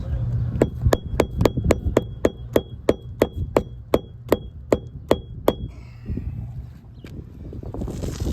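Hammer striking a steel flat bar, about fifteen quick metal-on-metal blows at roughly three a second, each with a short ringing ping; the strikes stop about two-thirds of the way through.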